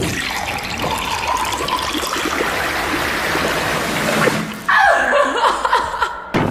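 A dense rushing, water-like noise full of small crackles. About four and a half seconds in it gives way suddenly to a louder, harsher sound.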